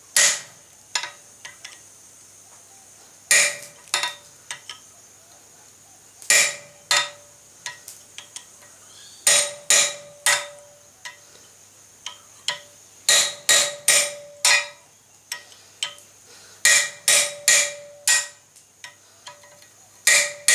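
Hammer blows on a hand-made 8 mm punch driven through hot flat steel bar on an anvil, single strikes and quick runs of two to five, many leaving a short metallic ring. The punch is being driven through from the flat side to finish punching a hole in a tong blank.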